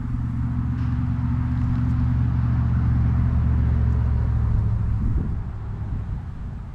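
An engine running steadily at low revs, fading in the last second or two.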